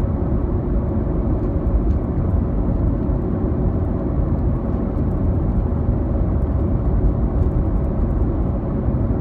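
Steady low rumble of a moving vehicle, heard from inside the cabin.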